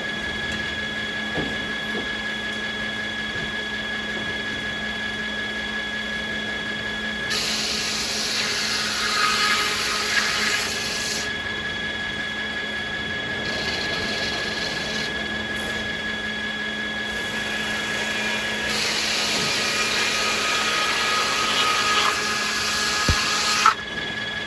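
Sawmill circular saw spinning with a steady whine, ripping beech twice, about a third of the way in and again near the end. During each cut the whine drops in pitch as the blade takes the load, then returns once the cut ends.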